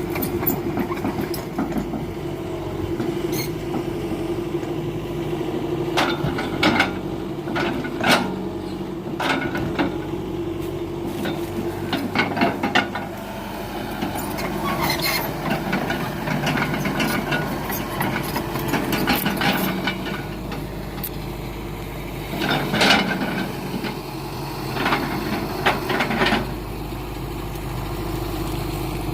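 Heavy diesel machinery running steadily, with repeated irregular knocks and clunks of timber logs being handled.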